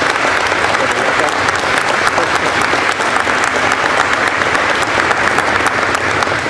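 Audience applauding steadily: many hands clapping together in a dense, even patter.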